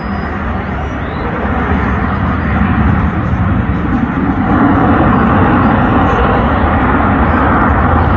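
Jet aircraft passing overhead, a loud engine roar that builds about halfway through and stays up.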